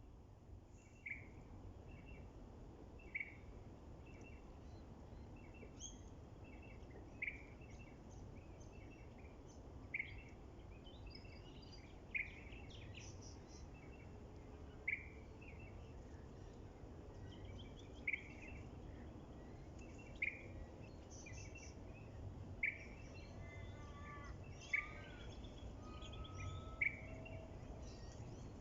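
Birds singing: one bird gives a short call over and over, about every two seconds, with other birds chirping more faintly among its calls. Under them runs a steady low background noise.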